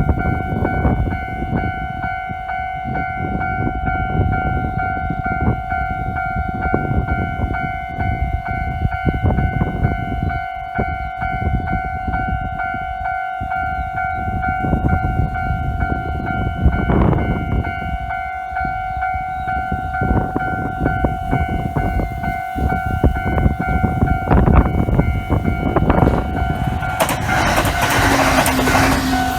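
Japanese railway level crossing's electronic warning bell ringing steadily at one pitch over the rumble and clatter of a train on the JR Uchibō Line. A louder rush of noise comes near the end.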